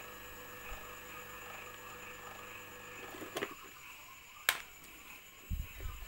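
Twin-tub washing machine spin-dryer motor, wired with its capacitor, running with a faint steady electrical hum that stops abruptly about three seconds in as it is switched off with a click; a sharp click follows, then a few low knocks near the end as the wiring is handled.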